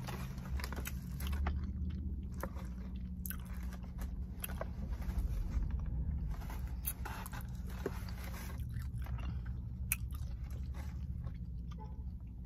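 A person chewing a mouthful of food with mouth closed, giving soft wet clicks and small crunches scattered through, over a steady low hum.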